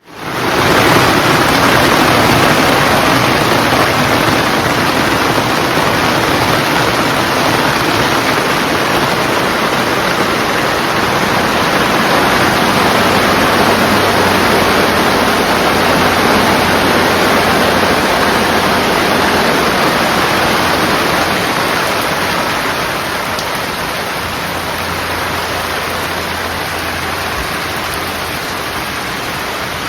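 Steady rain falling, a dense even hiss. It eases slightly about two-thirds of the way through.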